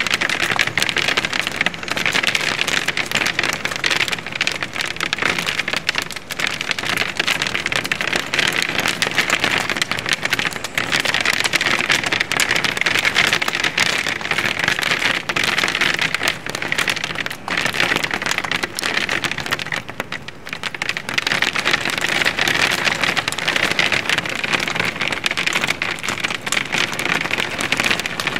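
Hail and heavy rain hitting a window pane, heard from inside the room: a dense, continuous pattering of many small impacts on the glass that eases briefly a few times.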